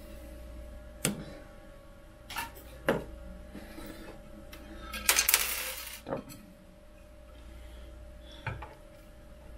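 Light clinks and knocks from an aluminium 3D-printer bed plate and tools being handled, with a louder scraping rustle about five seconds in that lasts about a second.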